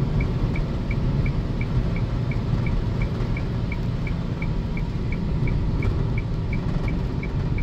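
Car cabin noise while driving on an expressway: a steady low rumble of road and engine noise, with a faint high tick repeating about three times a second.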